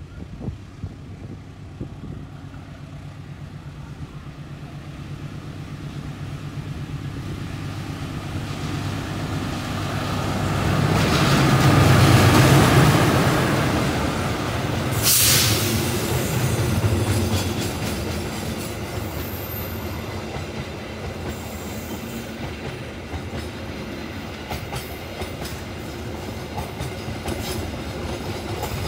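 A train passes close by. It grows louder to a peak about twelve seconds in over a steady low engine hum, gives a short hiss a few seconds later, then its wheels click over the rail joints as the cars roll past.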